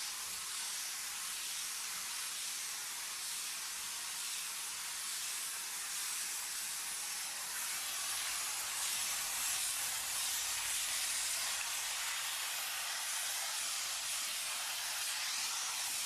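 Steady hissing of a 'Monster' cleaning machine working on shop floor tiles, a little louder in the middle.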